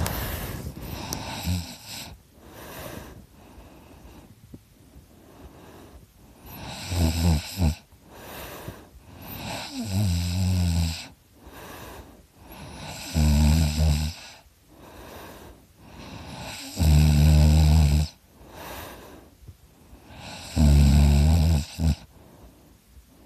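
A person snoring heavily in deep sleep: five loud snores about three and a half seconds apart, each a low pitched buzz lasting a second or so, with quieter breathing between them.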